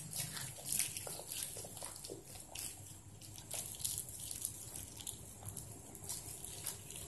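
Plastic bag of puffy paint being kneaded and squeezed by hand to mix the colour: faint, irregular crinkling of the plastic.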